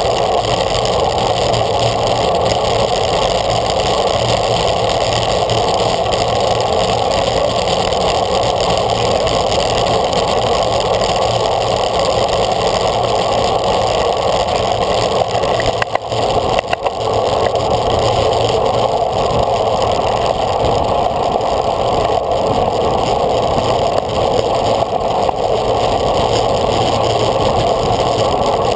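Steady rush of wind and road noise on a bike-mounted action camera moving at race speed, dipping briefly about sixteen seconds in.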